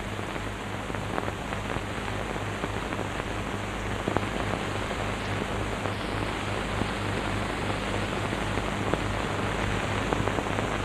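Steady hiss with scattered faint crackles and a low mains hum: the surface noise of an old film soundtrack.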